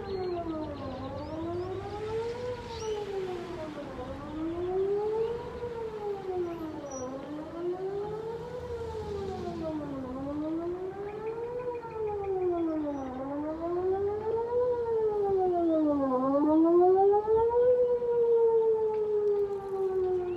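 Whelen WPS 2909 electronic outdoor warning siren sounding a wail during a siren test, heard from about 2,000 ft away: its pitch rises and falls in even cycles about every three seconds, then near the end it glides slowly down in one long fall.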